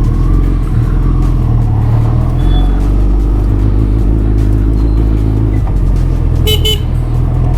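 A Suzuki Hayabusa's inline-four engine running steadily while the bike is ridden, a low engine note. Two short horn toots sound near the end.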